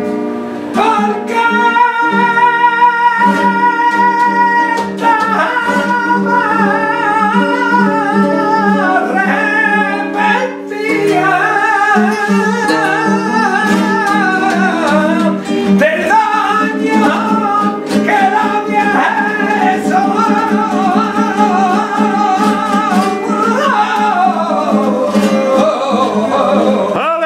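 Male flamenco singer singing fandangos with long, wavering, ornamented notes, accompanied by an acoustic guitar. The voice slides downward near the end.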